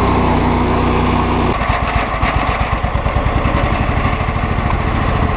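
Cub Cadet 3000 Series lawn tractor engine running steadily, then about one and a half seconds in its even note changes to an uneven, pulsing beat. The owner puts the rough running down to old gas and a carburetor that still needs rebuilding with a kit.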